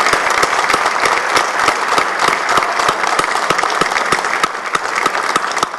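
Audience applauding: many hands clapping at once in a steady, dense round that eases slightly near the end.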